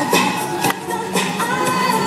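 Pop music with a singing voice over a steady, quick beat.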